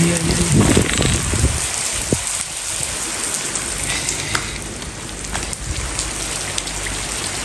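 Heavy rain falling steadily on a tiled terrace floor, an even hiss with scattered individual drop splashes.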